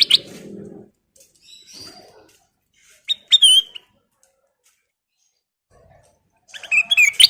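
Kutilang emas, a bulbul, singing: a short phrase of clear whistled notes about three seconds in, then a loud run of rapid notes near the end.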